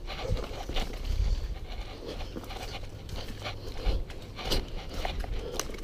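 Footsteps crunching through dry grass and leaf litter, with brush rustling, in uneven steps and a few dull thumps.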